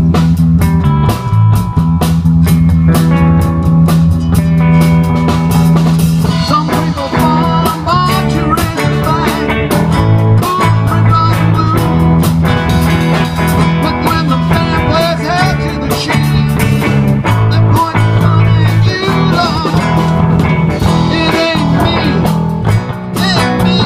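Blues-rock music with guitar, bass and drums, with a lead line of bending notes through the middle.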